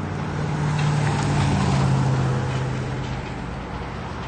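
A motor vehicle passing on the road: a low engine hum that swells about two seconds in and then fades, its pitch dropping slightly as it goes by.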